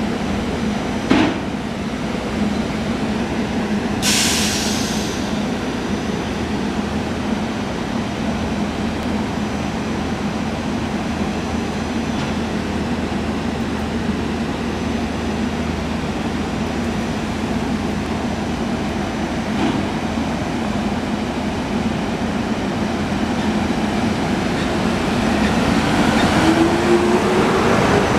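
SEPTA Silverliner IV electric commuter train pulling out of the station, with a steady hum, a sharp knock about a second in and a short hiss about four seconds in. Near the end a rising whine climbs as the train gathers speed and the cars pass close, growing louder.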